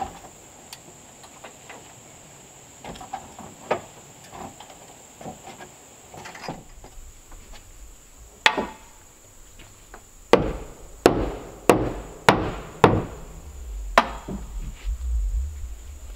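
A hammer striking wooden boards: one sharp blow, then a run of about six blows a little over half a second apart, with lighter knocks and handling noises before them.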